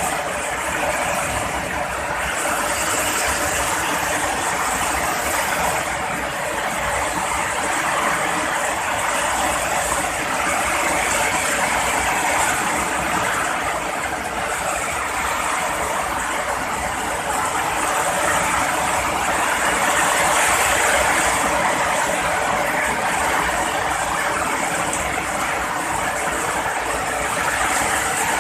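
Heavy rain falling in a steady, dense downpour, with slow swells in intensity.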